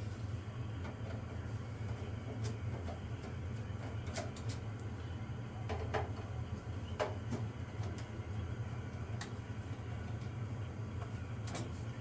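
Flat-blade screws being backed out of a signal generator's metal case with a screwdriver: scattered small clicks and scrapes every second or two, over a steady low hum.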